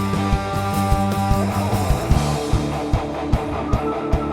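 Live gospel band playing an instrumental passage: a steady drum beat under held chords, which change about a second and a half in.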